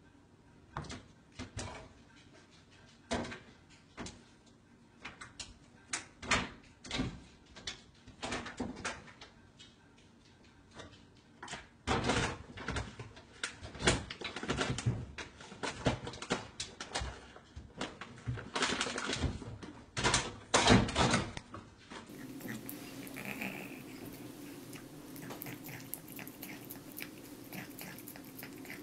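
Wooden kitchen cabinet door knocking and rattling, with a cat's claws scraping and scrabbling on it as it climbs and hangs from the open door, in irregular bursts of varying loudness. It breaks off about 22 s in, giving way to a faint steady hum.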